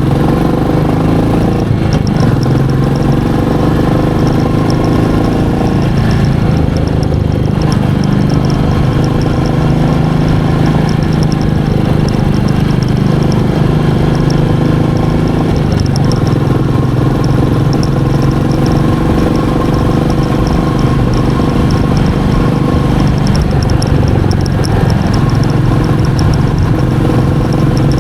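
Royal Enfield Meteor 350's single-cylinder engine running steadily, its pitch rising and falling a little with the throttle.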